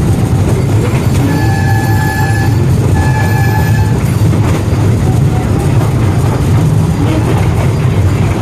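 Toy train running with a steady low rumble, its horn sounding twice in the first half, each blast about a second long.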